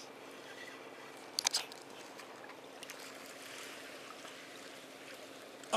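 Faint steady wash of sea water by a rocky breakwater, with a few sharp clicks about a second and a half in and one more at the end.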